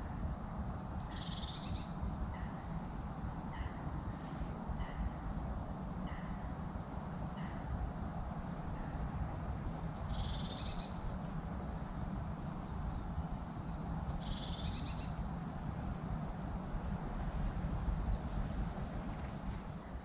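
Songbirds singing over the steady rushing of a forest stream. Three times a bird gives a loud song of about a second, a quick run of notes falling in pitch, and short high chirps come in between.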